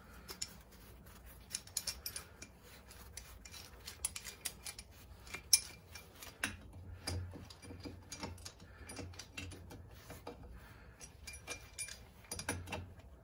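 Pipe wrench clinking and scraping against the intake manifold nut on a Harley-Davidson flathead engine as it is fitted and worked: scattered, irregular small metallic clicks, the sharpest about five and a half seconds in.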